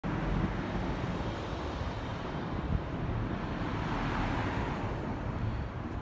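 City street traffic noise with a steady low rumble; one vehicle grows louder and fades about four seconds in.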